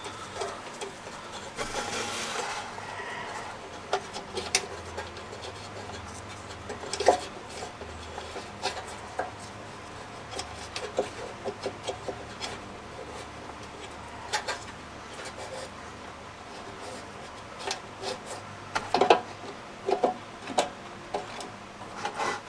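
Hands working a turn-signal unit and its socket into place: scattered clicks, taps and rubbing, with a sharp knock about seven seconds in and a cluster of louder knocks near the end.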